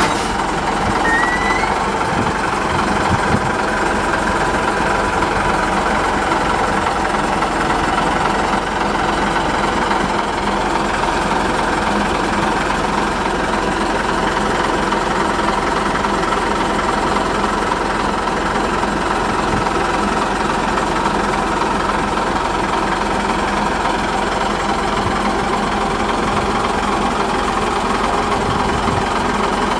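Small diesel shunting locomotive's engine running steadily while the locomotive travels along the line, heard from on board as an even, unbroken drone.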